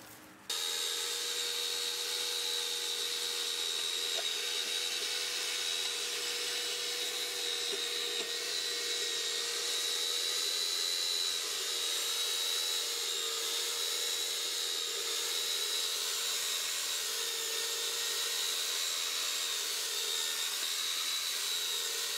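Steady machine-like whirr with an even high whine, starting abruptly about half a second in and holding level throughout.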